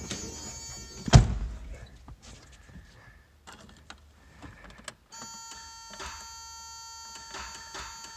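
A single loud click from the 1991 Toyota 4Runner's starter solenoid as the key is turned, with no cranking: the intermittent no-start fault, which the owner doubts is the battery or the relay. Later a steady high-pitched tone sounds for about three seconds.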